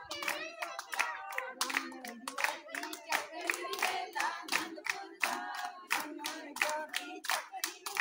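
A group of women clapping hands together in a fast, steady rhythm while singing a folk song for the dancers.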